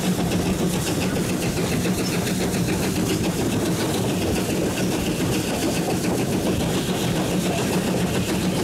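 GWR Modified Hall 4-6-0 steam locomotive 6990 working hard under power: a fast, even exhaust beat from the chimney over the running noise of the engine on the rails.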